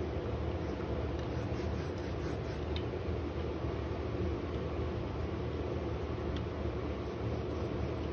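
Steady low hum and hiss of background noise, even throughout, with a couple of faint ticks.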